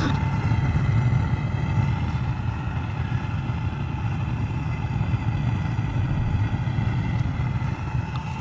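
Propane foundry burner firing steadily into a homemade melting furnace: a continuous deep rumble with a hiss of gas and flame above it.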